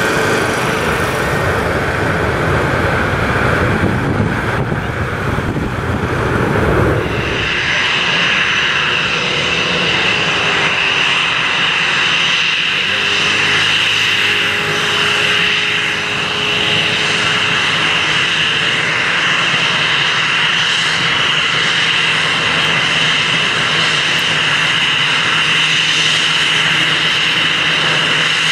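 Jet airliner engines: first a deep rumbling roar from a distant airliner on the runway. After a sudden change at about seven seconds, an Airbus A321's jet engines whine steadily at low power as it taxis close by.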